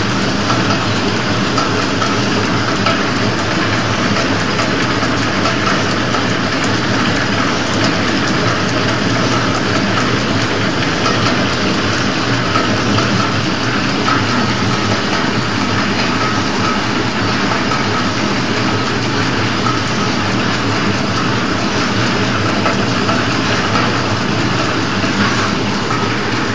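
Candy pillow-packaging (flow-wrap) machine running steadily, a dense even mechanical noise with a low hum and a faint steady whine.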